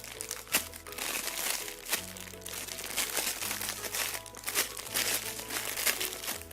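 Repeated crinkling crackles as squishy toys are handled, over background music with a low, steady bass line.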